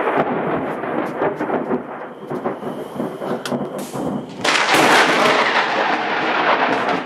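Thunder from a severe thunderstorm, rumbling and crackling continuously, swelling louder about four and a half seconds in.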